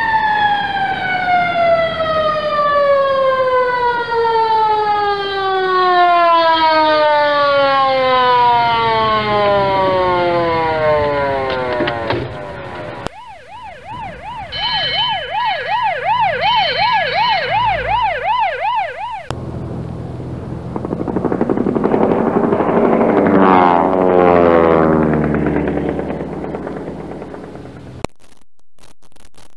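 A fire engine's mechanical siren winds down in one long falling wail. About 13 s in it cuts to an ambulance siren warbling rapidly for about six seconds. Then a military jet flies over, its rush swelling to a peak and fading before it stops abruptly.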